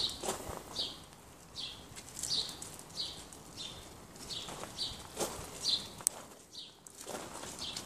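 A small bird chirping over and over, a short high chirp roughly every two-thirds of a second.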